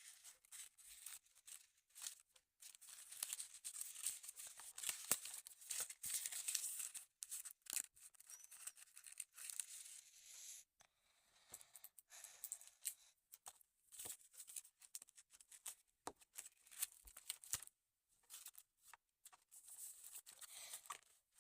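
Faint, irregular rustling and crackling with many small clicks, the noise of something being handled close by; it is busiest for a few seconds early on and drops out briefly just before the middle.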